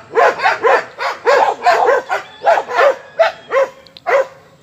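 A group of Aspin dogs barking in a quick run of short barks, about three a second, which stop shortly before the end.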